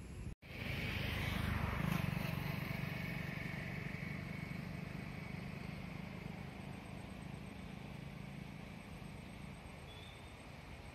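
An engine running steadily, starting suddenly, loudest about two seconds in, then slowly fading away.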